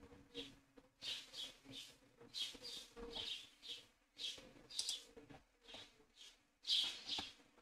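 A bird chirping over and over in short, high calls, about two a second, with a faint steady hum underneath.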